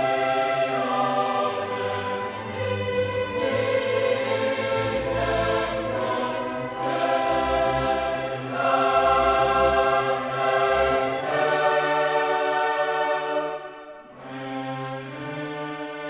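Background music: a choir singing slow, held chords with orchestral accompaniment, the chords changing every second or two. It falls quieter about 14 seconds in.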